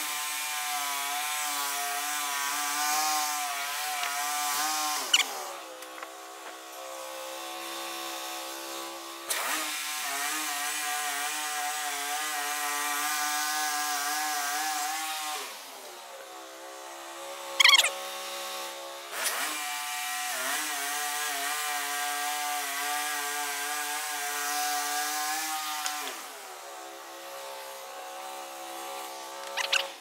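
Wood-Mizer LT15 Wide portable band sawmill cutting through a log: its engine runs steadily under load beneath the hiss of the band blade in the wood. The sound alternates between louder and quieter spells several times, with a brief sharp noise just past the middle.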